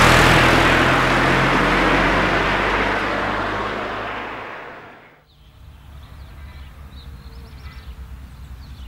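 A road vehicle passes close by, its tyre and engine noise loudest at the start and fading away over about five seconds. Then only a quiet, steady low hum remains.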